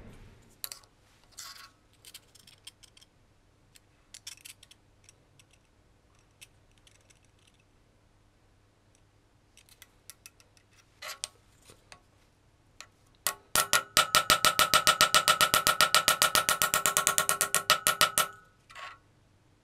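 Tungsten carbide ball-tipped hammer tapping a hardened knife blade on a steel anvil: a fast, even run of ringing metallic taps, about nine a second, for about five seconds. Before it come a few light clicks and scrapes as the blade and a steel straightedge are handled. The taps are peening strikes that stretch the steel to straighten a warped hardened blade.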